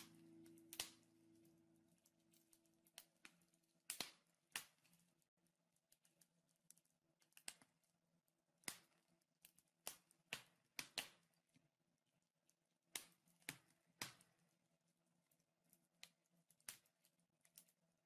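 Wood fire crackling faintly: sharp, irregular pops and snaps from the burning logs, some louder than others, about one or two a second. The end of a piece of music fades out in the first couple of seconds.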